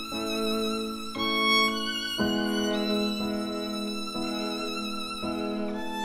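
Background music: a slow melody of long held notes, moving to a new note about once a second.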